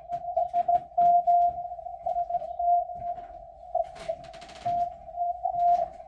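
Morse code (CW) from the M12 numbers station received on a Yaesu FTdx10 shortwave transceiver: a single steady-pitched beep keyed on and off in dots and dashes over faint band noise, with clicks and crackles scattered through it and a hissy burst a little past the middle.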